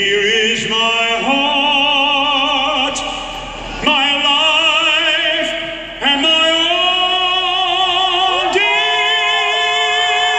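A man singing a cappella into a microphone, holding long notes with a wide vibrato, in phrases that start again about four, six and eight and a half seconds in.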